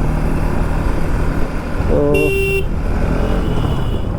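Bajaj Pulsar NS200 single-cylinder engine running steadily at low revs under road noise, with a vehicle horn sounding briefly about two seconds in.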